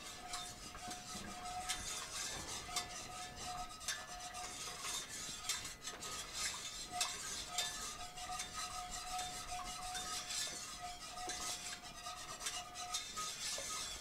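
Wire whisk stirring a thick chocolate-cocoa syrup in an enamelled cast-iron pot: continuous scraping and swishing with many small clicks of the wires against the pot, as the mixture heats toward a boil. A faint steady hum runs underneath.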